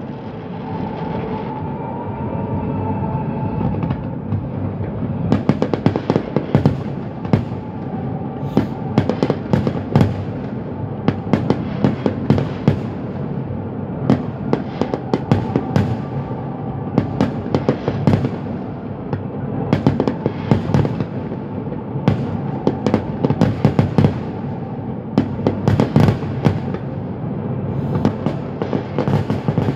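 Fireworks display: a dense, unbroken run of bangs and crackling bursts from aerial shells, with thicker clusters of loud reports at several points.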